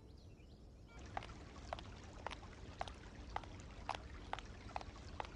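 Footsteps on a hard floor, starting about a second in and going on at an even pace of about two steps a second, each step a short sharp click.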